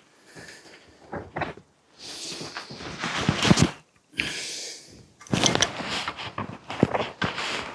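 Rummaging and clattering of metal hand tools while an adjustable spanner is fetched: irregular rattling bursts with sharp clicks and knocks, loudest about three and a half seconds in.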